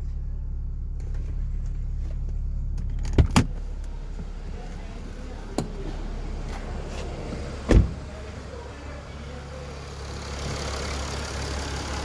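Mercedes-Benz ML350 idling steadily with a low hum. There are two quick knocks about three seconds in, a click, and then a heavy thump like a car door shutting near eight seconds. A steady hiss rises in from about ten seconds.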